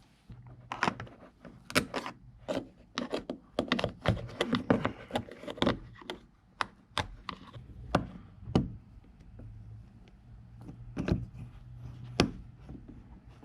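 Irregular clicks, knocks and scraping from hands working at a removed washing machine drain pump, trying to free a sock wound tightly inside it: the foreign object that jammed the pump.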